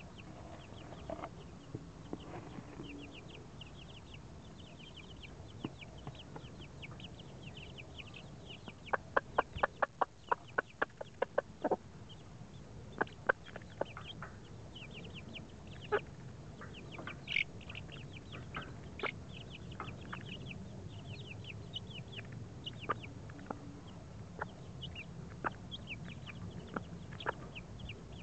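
A brood of three-week-old chicks peeping constantly, many short high cheeps overlapping. A quick run of sharp taps about nine seconds in, with single taps scattered after, as the chicks peck grain from an open hand.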